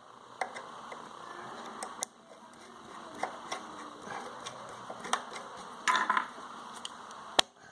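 Screwdriver tightening screws in a sewing machine's metal body: scattered small clicks and light scraping, a short rattle about six seconds in, and one sharp click near the end, the loudest.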